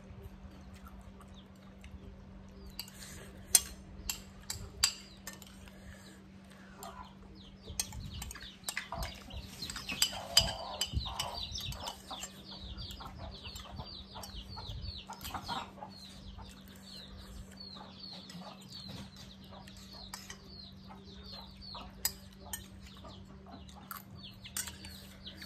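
A metal spoon clinking and scraping against a glass bowl during eating, with a few sharp clinks standing out. From about a third of the way in, birds keep up a rapid run of short falling chirps in the background, over a steady low hum.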